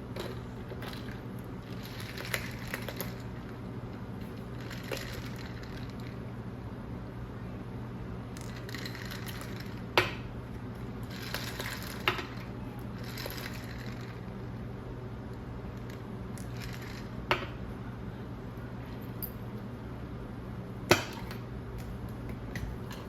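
Dishes or glassware being handled: soft rustling and sliding with a few sharp clinks, over a steady low hum.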